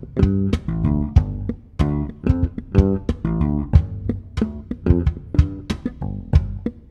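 Electric bass played percussively: short pitched notes run together with sharp percussive hits on the strings and body in a syncopated groove. It is the left-hand line joined with the percussive accents.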